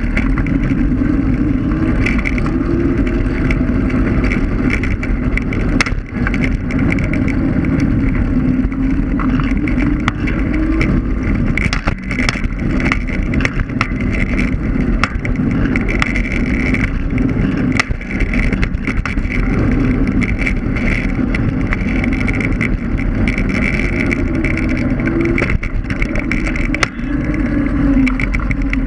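Electric scooter riding along an asphalt street: a steady low rumble of the wheels on the road, with a motor hum that drifts up and down in pitch and frequent small knocks and rattles over bumps.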